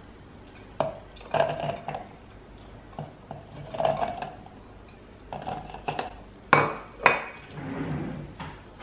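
Kitchenware clattering as a plate of spice ingredients is tipped and scraped into a plastic blender jar: scattered light knocks and clinks, with two louder knocks near the end.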